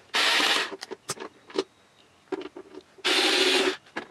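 Cordless screwdriver running in two short rasping bursts, about half a second each, near the start and about three seconds in, backing screws out of a stereo's sheet-metal casing. Light clicks and handling noises come between the bursts.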